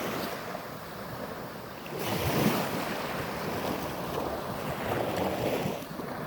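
Ocean surf washing onto a sandy beach, with wind on the microphone; the wash swells about two seconds in and again near five seconds.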